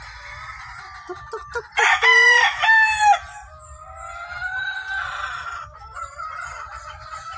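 Chickens clucking, then a rooster crows loudly about two seconds in, in two parts. A quieter, long drawn-out call that slowly rises in pitch follows.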